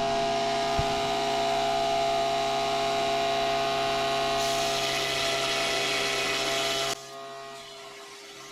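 Bauer 8-inch bench grinder's 2-inch belt sander running steadily while steel is sanded against the belt; the rasping grows louder about four and a half seconds in. About seven seconds in the sound drops abruptly to a quieter steady motor hum.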